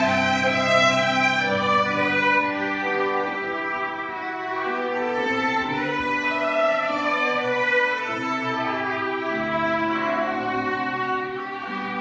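String ensemble playing: a violin melody over long held low bowed notes.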